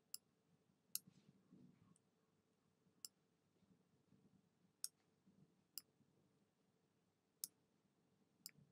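Computer mouse button clicking: about seven short, sharp single clicks at uneven intervals over a very quiet background.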